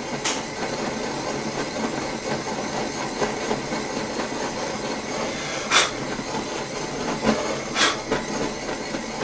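Handheld gas-cartridge blowtorch burning with a steady hissing flame. A sharp click sounds just after the start, the loudest near six seconds, and another near eight seconds.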